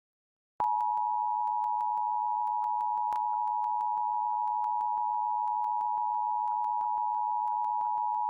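Emergency Alert System attention signal: the steady two-tone alert (853 Hz and 960 Hz sounded together) comes on sharply about half a second in and holds unchanged. It marks the start of the Emergency Alert System test message, after the coded header.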